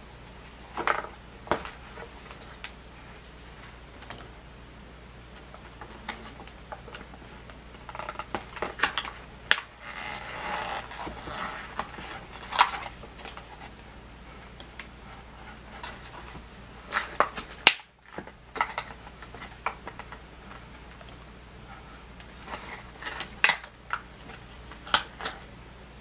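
Stiff plastic blister packaging of a Nerf Jolt four-pack being handled and worked open: scattered clicks, snaps and crinkles, with a longer stretch of crinkling about ten seconds in and bursts of clicks later on.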